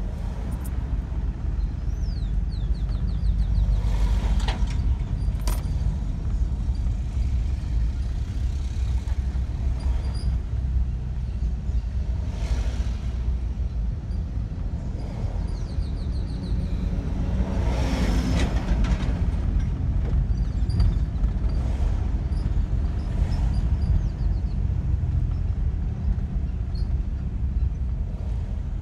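Steady low engine and road rumble inside a moving car's cabin. Oncoming vehicles pass in broad swells, the loudest about eighteen seconds in, and there are two sharp clicks at about four and five and a half seconds in.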